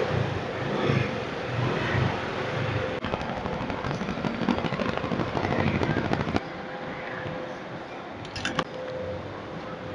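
Gunshots: a single sharp crack about three seconds in and a quick cluster of cracks near the end, over a steady background din.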